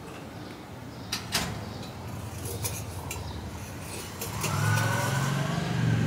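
A couple of light clicks, then about four and a half seconds in a motor vehicle's engine comes up and keeps sounding, its pitch rising slowly as it accelerates.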